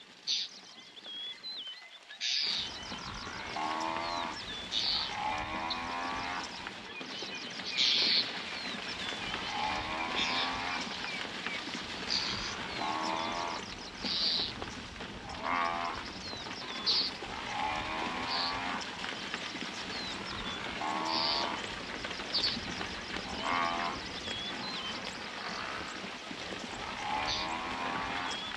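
An African buffalo herd on the move: repeated calls every second or two over a steady scuffle of hooves in dust, beginning a couple of seconds in. Short high chirps of red-billed oxpeckers sound among them.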